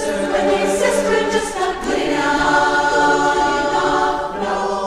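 An a cappella chorus singing sustained chords in close harmony. The chord changes about two seconds in and again near the end.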